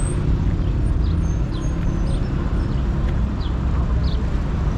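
Busy street ambience: a steady rumble of car traffic on the adjacent road, with small birds giving frequent short, high chirps over it.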